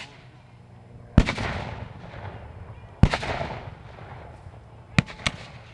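Black-powder gunfire: two loud shots about two seconds apart, each trailing off in a long rolling echo, then two sharper cracks in quick succession near the end.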